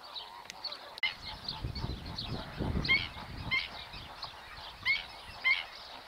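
A chorus of wetland birds calling: many short, honking calls, repeated and overlapping, with a low rumble underneath from about a second and a half in.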